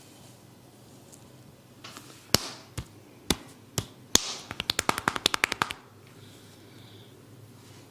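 Sharp hand strikes on a person's head during a head massage: five single slaps about half a second apart, then a quick run of rapid taps, about ten a second.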